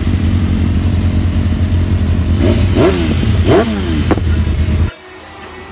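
Racing sportbike engine idling on paddock stands, its throttle blipped two or three times so the revs rise and fall about halfway through, with a sharp crack from the exhaust near the end of the revving. The sound cuts off abruptly shortly before the end.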